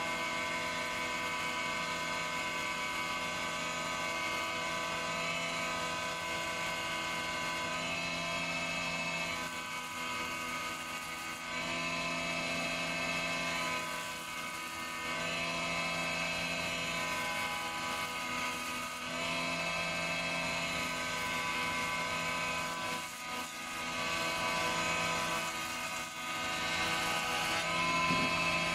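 Small planer-thicknesser running with a steady, whining motor tone while a sapele board is hand-fed across its cutter block for surface planing. The sound dips briefly several times.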